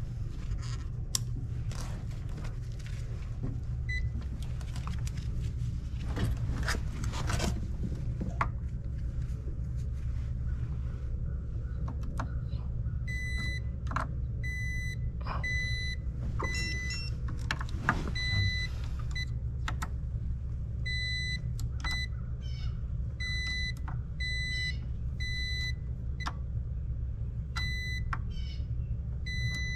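An electrical tester sounds short, high beeps from about 13 seconds in, roughly once or twice a second in groups with brief pauses. Scattered clicks and scrapes of tool handling come before the beeps, and a steady low hum runs underneath throughout.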